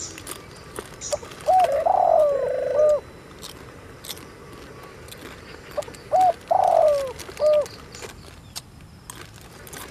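A dove cooing: the same rising-and-falling phrase twice, about four and a half seconds apart, with light clicks and crinkles in between.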